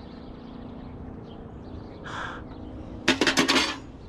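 A crow caws once, a single hoarse call about halfway through. Near the end comes a short burst of rattling and clattering, the loudest sound, as junk in a curbside scrap pile is handled.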